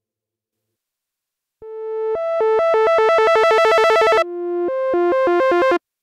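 KORG miniKORG 700S software synthesizer playing its "5th Spiral" preset: a bright tone coming in about a second and a half in, flipping between two notes a fifth apart and speeding up into a fast warble. It then repeats the figure on two lower notes and cuts off suddenly near the end.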